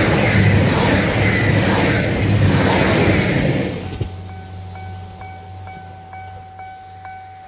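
Diesel train passing close by at speed: a loud rush of wheels and engine over a steady low drone. It dies away after about four seconds as the train recedes. A steady ringing tone with a regular beat continues underneath.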